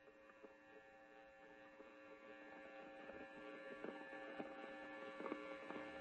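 Quiet background music fading in: a held chord of steady tones, with faint light ticks growing more frequent toward the end.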